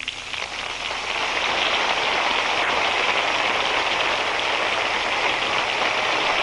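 Large church congregation applauding, swelling over the first second and then holding steady.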